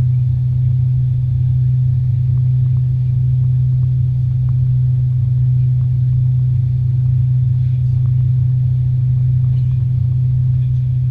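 Steady low drone inside the cabin of an Avro RJ85 jet airliner, the sound of its four turbofan engines and airflow heard from a passenger seat; the level and pitch hold constant.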